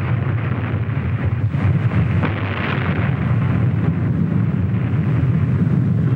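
Continuous low rumble of an atomic bomb test explosion on an old film soundtrack, with a few sharper cracks around two seconds in.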